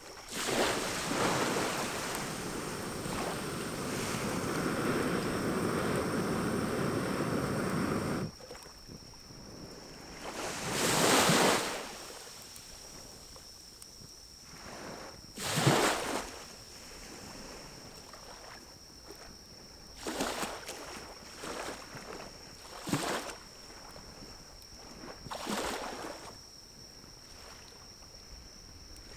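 Small wood stove burning pine cones, its fire rushing loudly for about eight seconds as air is blown in with a pocket bellows, then cutting off suddenly. Shorter whooshes and small bursts of crackling follow, over a faint steady high tone.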